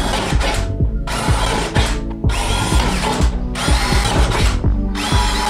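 Cordless drill boring through the sheet-metal top of an amplifier case, running in stretches with short pauses. Background music with a steady beat plays under it.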